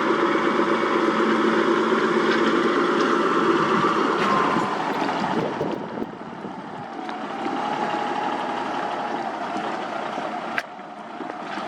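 Heavy construction machine's diesel engine running, loud for the first four or five seconds and then dropping off, with a sharp click near the end.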